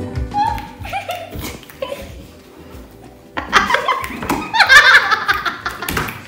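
Loud laughter breaks out about three and a half seconds in, after a quieter stretch with a few faint voice sounds.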